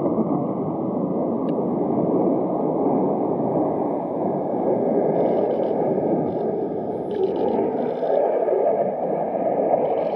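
Steady jet noise from an F-15 fighter's two turbofan engines as it flies a hard, banking high-G turn.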